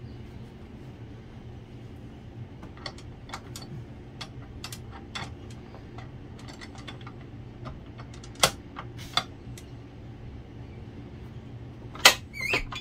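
Scattered clicks and knocks of a metal dough hook being fitted onto a KitchenAid stand mixer's shaft, ending in a couple of sharper clacks as the mixer head is handled. The mixer is not running; a steady low hum sits underneath.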